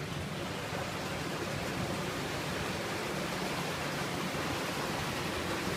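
Steady rushing noise with no distinct sounds standing out.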